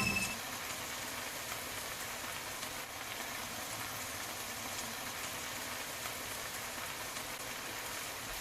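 Cabbage and potatoes frying in a pan: a steady, even sizzle.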